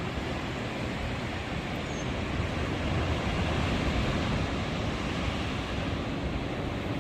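Ocean surf breaking and washing on the shore: a steady rush of noise that swells a little a few seconds in.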